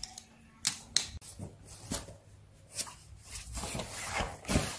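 Tangram pieces being slid and set down on a puzzle card: several light taps and clicks, then a stretch of handling and rustling and a thump near the end.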